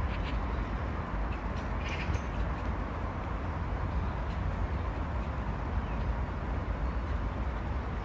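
Outdoor park ambience: a steady low rumble with a short harsh call about two seconds in, like a crow cawing, and a few faint clicks.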